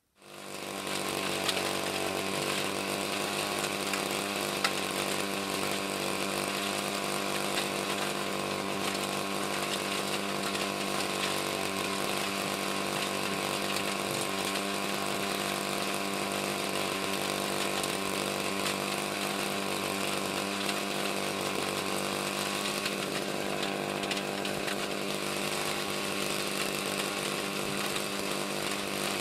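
A motor running steadily at one constant speed, starting abruptly and holding the same even pitch throughout.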